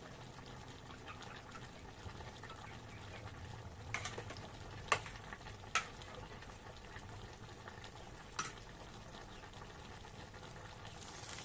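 Food cooking in a pan or pot as it is stirred, a steady low simmering noise. Four sharp clinks of a utensil against the pan come in the middle part.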